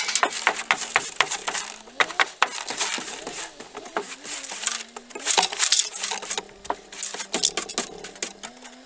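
Push broom sweeping out the wooden bed of a pickup truck: bristles scraping over the boards, with small bits of scrap metal and debris clinking and skittering in quick, irregular clicks.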